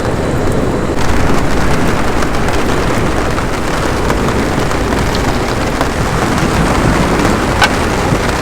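Steady rain falling, with a few sharp drip ticks; it grows a little louder about a second in.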